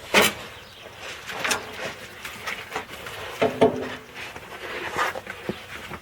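Scattered knocks, clinks and scraping from hand tools and parts being handled under a van. The loudest knocks come right at the start and about three and a half seconds in, the second with a short metallic ring.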